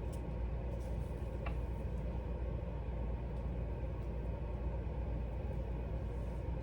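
Steady low rumbling background noise, with one faint small click about a second and a half in.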